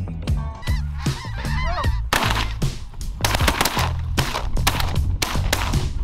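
A large flock of snow geese calling: a few separate honks at first, then from about two seconds in a dense, continuous din of many birds at once, over music with a steady bass.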